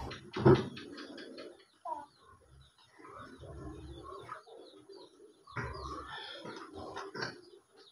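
Faint bird calls in the background, with a short thump about half a second in.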